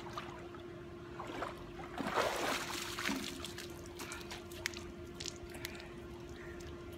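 Water splashing and running off a swimmer as he climbs out of a pool by the ladder, with a louder rush of water about two seconds in, followed by scattered drips and light taps. A steady hum runs underneath.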